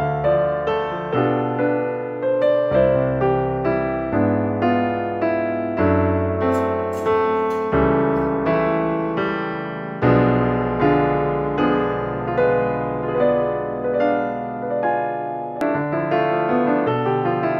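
Background music: a gentle electric piano piece, notes struck in a steady rhythm.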